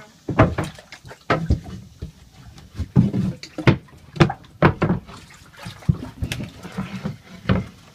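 Floodwater splashing with a run of sharp knocks about every half second to second, as a boat paddle is worked in the water and against a small boat.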